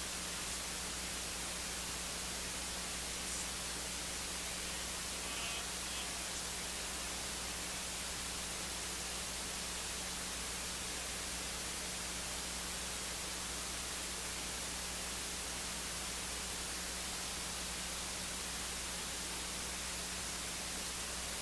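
Steady hiss with a low, even hum underneath; no speech or music.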